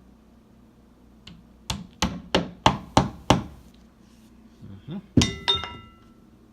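Hammer tapping cam locks into the cabinet panels: six quick sharp taps, about three a second, then a couple of knocks with a brief metallic ring.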